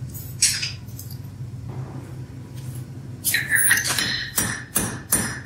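Hand hammer striking a red-hot bar over the rounded edge of an anvil to draw the metal out, each blow followed by the anvil's ringing. The blows start about three seconds in and come about two and a half a second, after a single metallic clink near the start.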